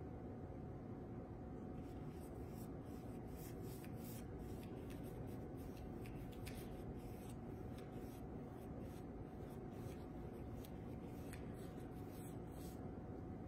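Faint, repeated scratchy strokes of a paint-loaded brush on canvas, over a steady room hum.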